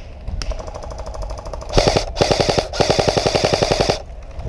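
Airsoft rifle firing full-auto in rapid bursts of about twenty shots a second: a fainter stretch of fire, then three loud bursts, the last and longest stopping near the end.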